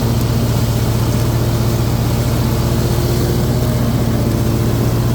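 Kohler 24 hp V-twin engine of a Hustler Raptor Limited zero-turn mower running steadily at mowing speed, with the 52-inch deck's blades engaged and cutting grass.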